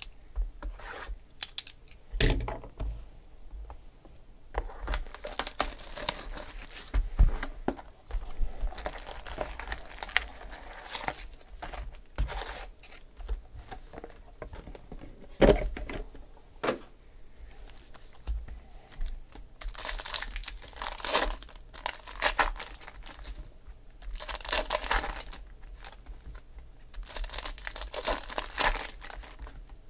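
Trading card packaging being handled: a box of football cards unwrapped and opened, with crinkling and a few knocks, then foil card packs torn open, the crinkling and tearing coming louder and denser in the last third.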